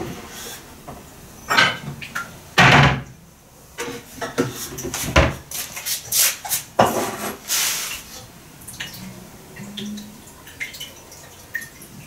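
Kitchenware clinking and knocking at the counter, with a few short bursts of running water while water is measured out for the cupcake batter.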